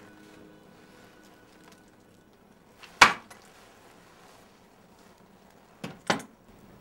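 Sharp knocks in a small room: one loud one about three seconds in, then two close together near the end.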